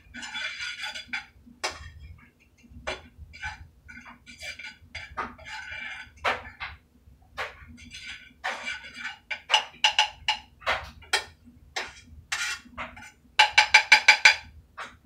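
Cooking utensil scraping and knocking against a frying pan holding pita bread and butter, in a string of short strokes, some with a squeak. Near the end comes a quick run of squeaky scrapes, the loudest part.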